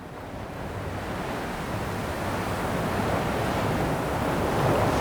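Atlantic surf washing onto the beach, with wind rumbling on the microphone; the sound swells up over the first couple of seconds.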